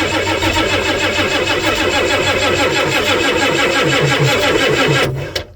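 Starter cranking the 1990 Ford E350's 7.3-litre IDI diesel engine in a steady rhythm without it catching, then stopping abruptly about five seconds in. The engine will not fire because no fuel has yet reached the cracked fuel line: the fuel system is still being primed, and the tank may hold too little fuel.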